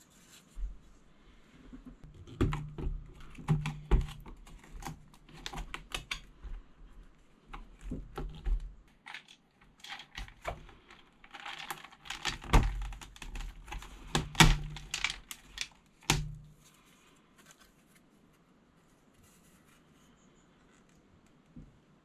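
Hard plastic clicks, knocks and clatter of an RT101 keyboard being taken apart by hand, as its case frame and key plate are handled and lifted off. The run of clicks stops after about sixteen seconds.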